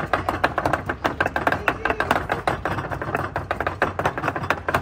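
Wooden pestle pounding garlic in a mortar: rapid, repeated sharp knocks, several a second.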